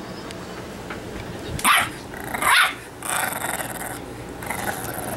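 Bulldog puppy barking twice, two short yappy barks less than a second apart, the second a little longer.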